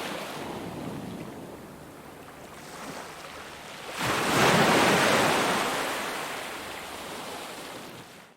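Ocean surf: a wave breaks with a sudden swell about four seconds in, then washes out and slowly fades. The sound cuts off abruptly at the very end.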